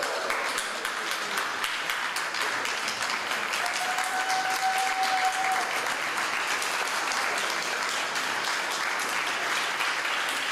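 Audience applauding steadily, many hands clapping. A single steady tone sounds for about two seconds midway through.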